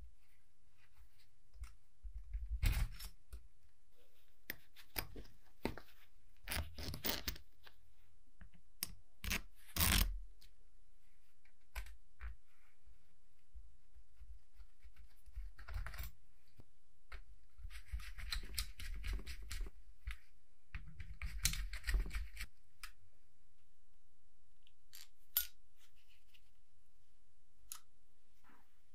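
Small transformer being taken apart by gloved hands: scattered sharp metal clicks and knocks as the steel mounting bracket and laminated core are handled, with a few short rasping scrapes a little past the middle.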